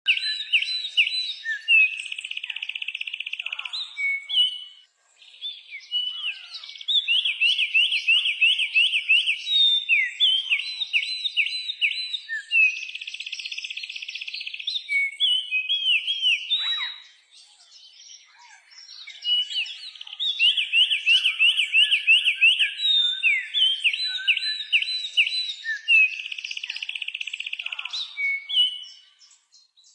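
A small songbird singing long, high-pitched phrases of rapid trills and chirps in quick succession. The singing stops for about two seconds partway through, then the same run of phrases starts again.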